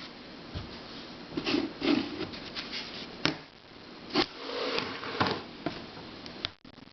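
Puzzles being handled and moved on a shelf: scattered light clicks and knocks with brief rustling.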